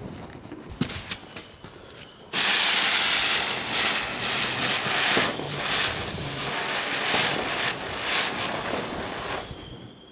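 Small ground-spinner firework (Geisha Electric Flowers ground bloom) hissing loudly as it spins and throws gold sparks; the hiss starts suddenly about two seconds in and stops shortly before the end.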